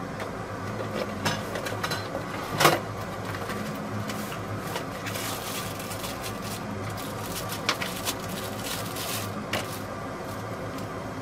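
Unpacking sounds: cardboard box parts knocked down on a wooden workbench, the sharpest knock about two and a half seconds in, then a plastic bag crinkling as it is opened, over a steady low hum.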